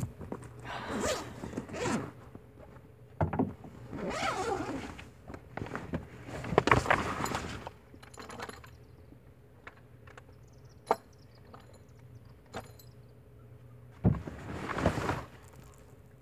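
Someone rummaging through gear: a series of short scraping and rustling bursts, some like a zipper being pulled, with a few sharp clicks in between.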